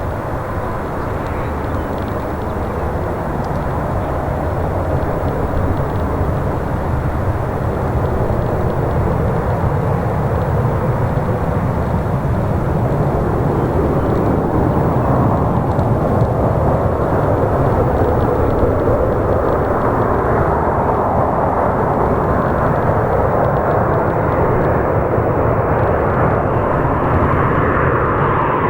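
Boeing 737-800 jet airliner with its CFM56-7B turbofan engines: a steady jet rumble that grows gradually louder as the aircraft draws closer.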